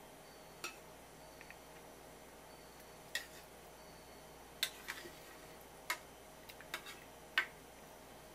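Chopsticks clicking against a small ceramic dish as the simmered tuna eye is moved and turned: about a dozen sharp, irregular clicks, the loudest near the end.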